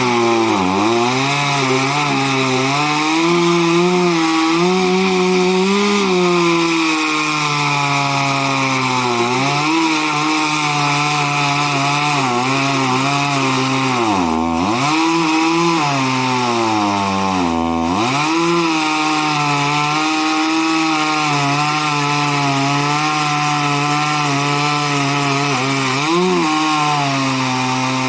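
Chainsaw running at high revs and cutting wood. Its engine note sags sharply and recovers a few times as the chain bites into the timber.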